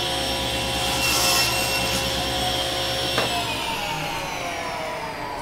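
Table saw running, its blade cutting through wooden stock held in a crosscut sled about a second in. The saw is switched off about three seconds in, and its whine falls steadily as the blade spins down.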